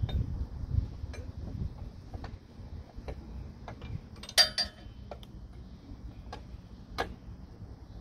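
Scattered metallic clicks and taps of hand tools on the engine's metal parts, irregular rather than rhythmic, with the loudest cluster of clicks about four and a half seconds in and another sharp click near the end.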